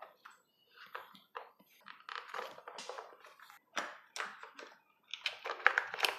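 Hard plastic parts of an RC truck's receiver box clicking and scraping as they are slid apart and handled: a string of irregular short clicks, with a brief pause near five seconds.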